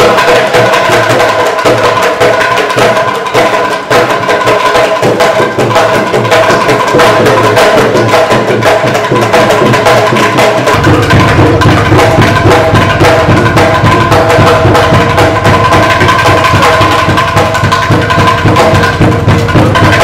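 Loud dance music driven by fast drumming and percussion over a few held tones, with a deeper bass coming in about halfway through.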